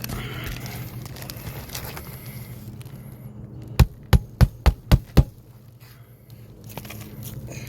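Six sharp knocks in quick succession, about four a second, over a low steady hum.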